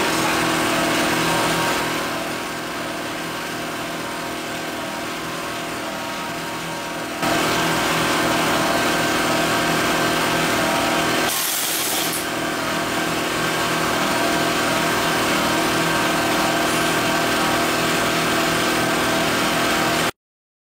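Lincoln Vantage 400 engine-drive welder/generator running steadily under the plasma beveling setup. The sound drops a little about two seconds in and steps back up about seven seconds in, with a short burst of hiss around eleven seconds.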